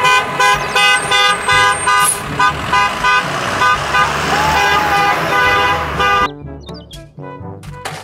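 Vehicle horn tooting over and over at one pitch, about two to three short toots a second, for about six seconds, then dropping away.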